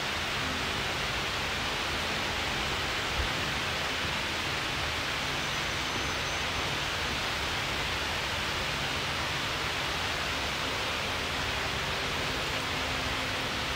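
Steady, even rushing noise with a faint low hum underneath, and one light knock about three seconds in.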